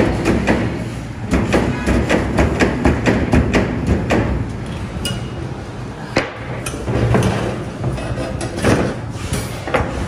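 Hammer striking iron wire on a cage-forming jig, quick taps about three a second for the first four seconds, then scattered metallic clinks and rattles as the wire cage frame is handled and lifted.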